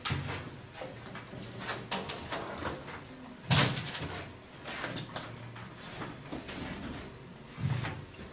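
Blackboard eraser wiping chalk off a chalkboard in repeated sweeping strokes, with two louder knocks, one about three and a half seconds in and one near the end.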